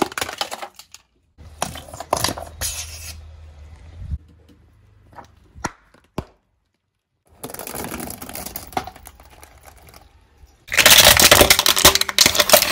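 Car tyre rolling over and crushing small objects on paving stones: sharp cracks and snaps, then crackling, with the loudest part a dense run of cracking and crunching from about eleven seconds in. A short silent gap comes about six seconds in.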